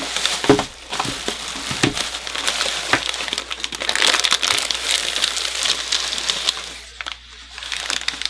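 Thin clear plastic shipping wrap crinkling and crackling as it is torn and pulled off a packaged toy sword, dying down near the end.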